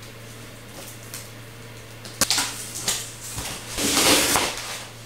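Cardboard box being opened by hand: a few sharp clicks and short scrapes of the cardboard a little over two seconds in, then a louder rustling scrape around four seconds in as the lid comes off the foam insert.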